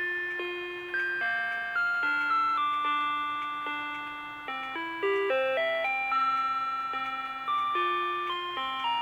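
Rhythm Watch "Weektime" melody alarm clock (1987) playing one of its built-in electronic alarm tunes: a simple two-part melody over a low accompaniment, each note struck sharply and then fading.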